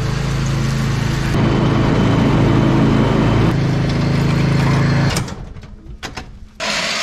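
John Deere Z425B zero-turn mower's engine running steadily as the mower drives, then stopping about five seconds in as it is shut off. A short burst of hiss follows near the end.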